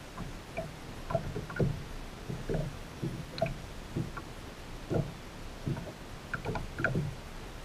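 Lake water lapping and slapping against the hull of a stand-up paddleboard: irregular soft splashes, one or two a second, with a few small clicks among them.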